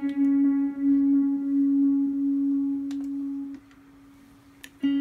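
A single clean electric guitar note, played on an ESP LTD MH-103QM through a Mooer GE200 amp modeller, rings out as one pure sustained tone, fades and cuts off about three and a half seconds in. A few faint clicks are heard, and a new note starts just before the end.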